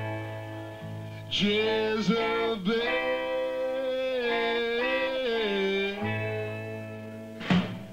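A man singing long held notes that slide between pitches into a microphone, backed by guitar with a sustained low bass note under the opening and closing seconds. A brief loud accent comes near the end.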